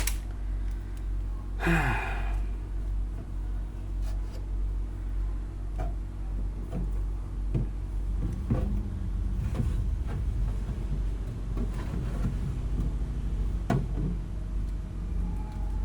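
A steady low mechanical hum runs throughout, with scattered knocks and a brief rustle of packaging and fridge parts being handled.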